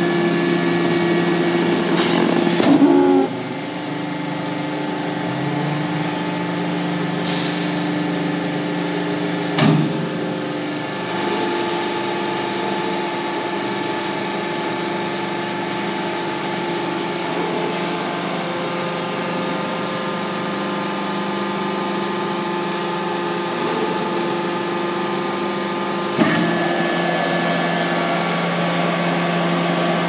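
Hydraulic power pack of an Enerpat HBA-SB220 sawdust baler running with a steady hum while the ram pushes a compressed sawdust bale out of the chamber. Its tone shifts as the load changes, about three seconds in and again about ten seconds in, with a short clunk there and another near the end.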